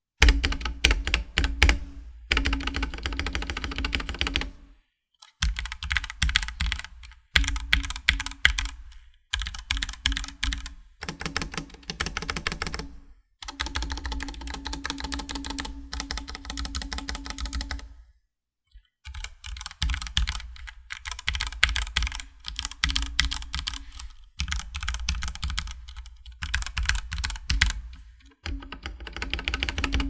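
Typing on a Ducky One 2 SF compact mechanical keyboard: quick runs of keystrokes and spacebar presses in bursts of a few seconds, with brief pauses between them.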